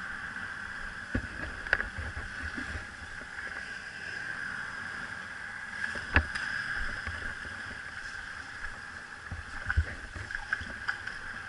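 Shallow river water running steadily over a riffle, with a few short knocks and bumps scattered through.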